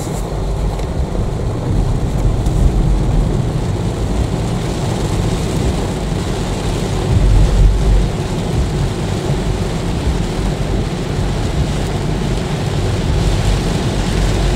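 Heavy rain on a car's windshield and roof over a steady low rumble of road and cabin noise, heard from inside the moving car. The low rumble swells briefly a little past halfway.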